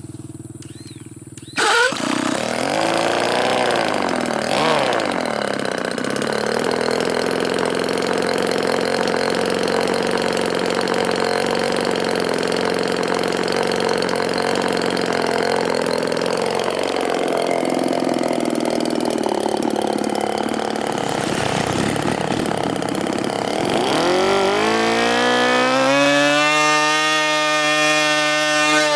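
Small petrol engine of a model F-22 plane starting suddenly about two seconds in and running with its pitch wavering. Near the end it revs up to a high, steady pitch.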